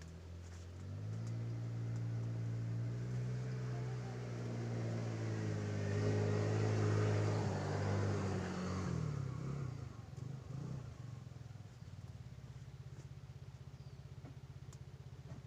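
A motor vehicle's engine passing by, growing louder to a peak about seven seconds in and fading away by about ten seconds. After that comes a steadier, quieter low engine hum.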